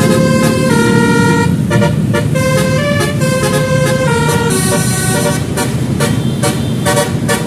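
Multi-tone telolet horn playing a tune of stepped, held notes over a running vehicle engine.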